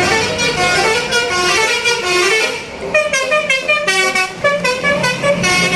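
Telolet bus horn: a coach's multi-tone musical horn playing a quick melody of rapidly stepping notes, with a brief dip about halfway through.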